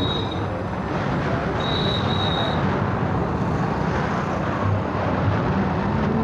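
Steady engine and road noise from a moving vehicle, heard while riding in or on it. A thin high tone sounds briefly twice in the first couple of seconds.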